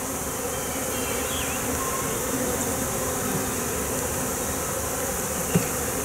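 Honey bees buzzing steadily around an open hive, the even drone of many bees.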